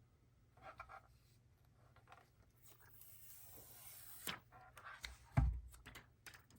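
Faint handling noises on a desk: rubbing and scraping of the plastic power strip and its packaging, with a few light clicks and a dull knock a little over five seconds in.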